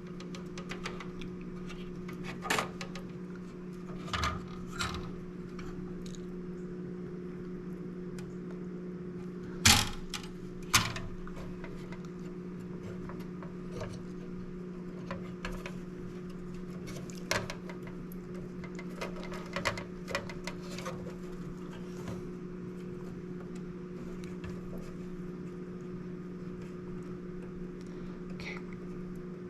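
Scattered light clicks and taps as a small electronic part and hand tools are handled on a circuit board, the sharpest tap about ten seconds in, over a steady low electrical hum.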